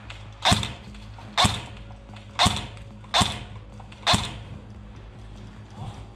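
M4 Block II airsoft rifle firing five single shots about a second apart, each a sharp crack with a short tail.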